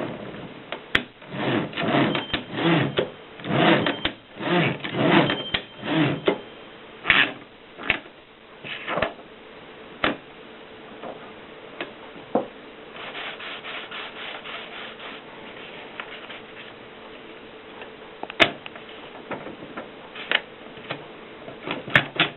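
Japy Script manual typewriter being worked: a string of irregular clacking, rasping mechanical strokes, then a quick run of light clicks and a few single sharp clicks near the end.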